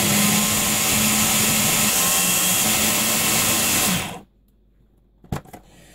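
Electric food processor running steadily as its blade chops fresh parsley, then switching off abruptly about four seconds in. A short click follows about a second later.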